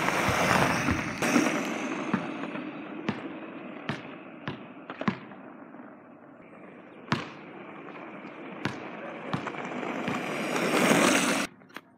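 Electric skateboard wheels rolling over rough asphalt, a rushing roll that swells as the board passes close by at the start, fades as it moves away, then builds to its loudest near the end before cutting off suddenly. Sharp ticks and knocks come scattered throughout.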